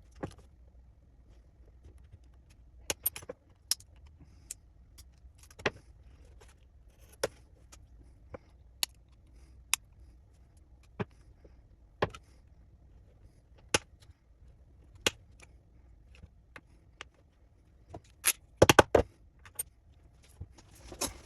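Small hard parts clicking and tapping as they are handled on a workbench, sharp separate clicks about a second apart, with a quick run of louder clacks near the end.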